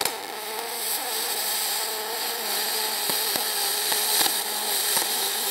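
Aluminum MIG welding arc from a spool gun with 0.030 wire under pure argon. The arc strikes suddenly and settles into a steady, loud hiss with a few crackles. It runs a little long at the start because the wire feed speed is maxed out for the too-small wire.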